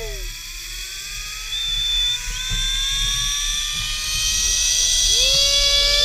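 Zipline trolley pulleys running along a steel cable, a whine that rises slowly in pitch as the rider picks up speed, with a rushing wind hiss that grows louder. A second, steadier tone joins about five seconds in.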